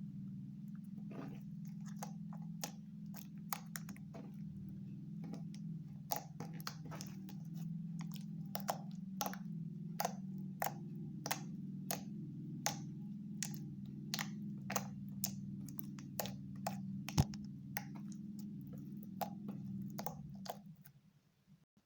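Slime being squeezed and worked by hand, making irregular sticky clicks and small pops, about one or two a second, over a steady low hum. The sound fades out near the end.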